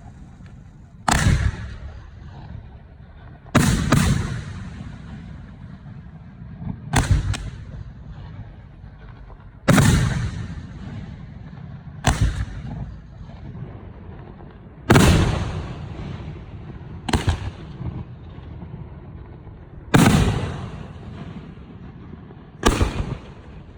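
Professional aerial fireworks going off in heavy booms, about nine in all, one every two to three seconds, some coming as quick doubles, each trailing off over a second or two.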